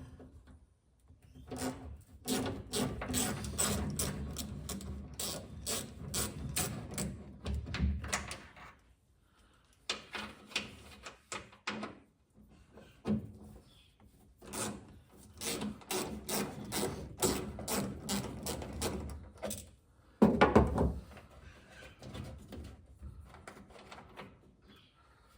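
Ratchet wrench with a small 10mm socket clicking in rapid bursts with short pauses as the taillight's 10mm bolts are undone, with one loud knock near the end.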